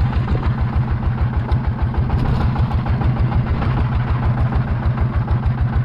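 Fishing boat's engine running steadily while trolling, a fast, even low pulsing.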